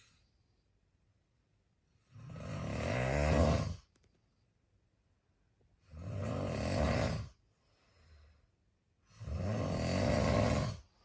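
A man snoring in his sleep: three long snores about three and a half seconds apart, each building in loudness, with a soft breath between the second and third.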